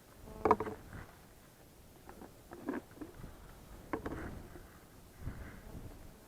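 Small objects being handled: a few light knocks and clinks, with a short ringing squeak about half a second in.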